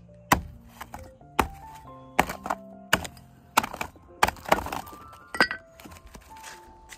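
A hand-held stone striking a sheet of ice frozen in a plastic basin, with repeated sharp knocks and cracks about every half second to a second as the ice is broken up, over background music.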